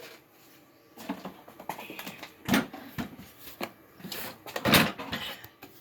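Irregular knocks, clunks and rustling of things being handled, with a few sharper strikes about two and a half seconds in and near the end.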